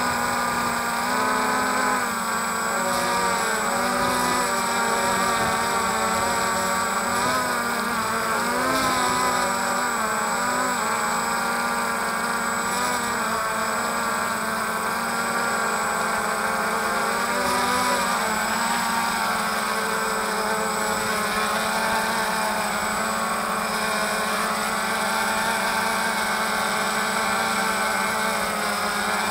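DJI Phantom quadcopter's motors and propellers buzzing close to the microphone, a steady multi-toned hum whose pitch wavers as the drone adjusts its height and position.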